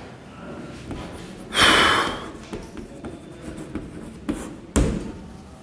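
Chalk tapping and scratching on a blackboard as a word is written. There is a loud, short noisy burst about one and a half seconds in and a sharp knock near the end.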